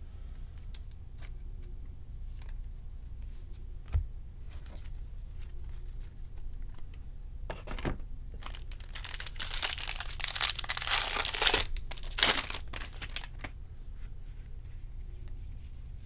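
Foil wrapper of a Topps baseball card pack crinkling and tearing as it is opened, loudest in the second half. Faint clicks and a single knock about four seconds in come before it.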